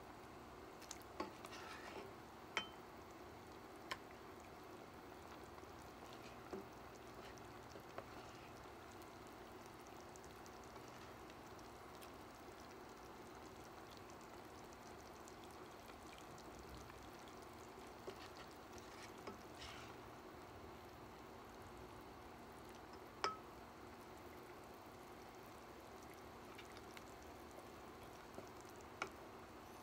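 A metal ladle scooping kimchi hot-pot soup from a pan into a ceramic bowl: soft pouring and a dozen or so scattered light clinks and taps of the ladle against the pan and the bowl, over a faint steady hum.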